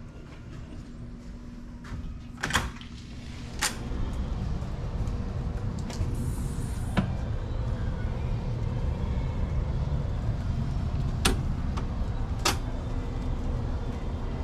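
A hotel room door's latch clicking as the door is opened, followed by a steady low rumble with a few more sharp clicks.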